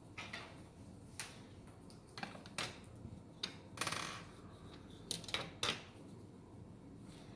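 Irregular clicks, taps and short scrapes of hard parts being handled, with a longer scrape about four seconds in, as a fairing side cover and its bolts are fitted onto the mounting bracket.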